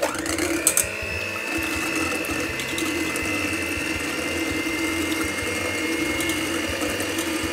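Electric hand mixer switching on with a quick rising whine, then running at a steady speed, its wire beaters whipping whole eggs and sugar in a stainless steel bowl. There are a few clicks about a second in, as the beaters touch the bowl.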